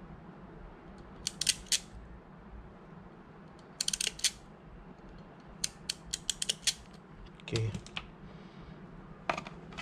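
Hand crimping pliers working a thin electrical wire: sharp metallic clicks and snips in about five short clusters.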